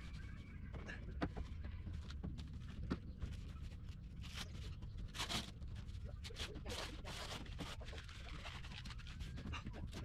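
Stiff sailcloth of a torn foresail rustling and crinkling as it is handled and smoothed by hand, in quick crackles that are thickest from about four to seven seconds in. A steady low wind rumble on the microphone runs underneath.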